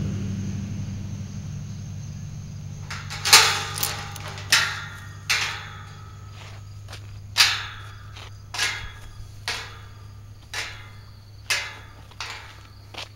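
Footsteps crunching through dry fallen leaves, starting about three seconds in at roughly one step a second, over a low steady hum.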